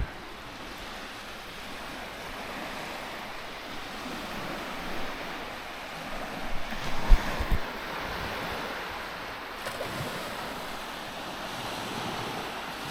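Sea waves washing onto the shore with the tide coming in, a steady hiss of surf that swells and eases. A few brief low thumps about seven seconds in.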